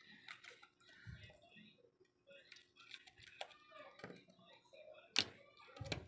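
Faint scattered clicks and taps of small phone parts and tools being handled, with one sharper click about five seconds in.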